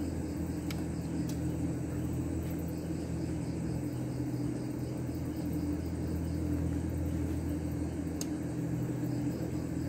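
A steady low machine hum running evenly, with crickets chirping in a regular rhythm over it and a few faint clicks.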